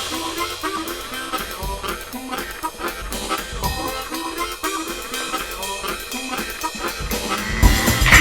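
Background music with a steady drum beat, growing louder and fuller near the end.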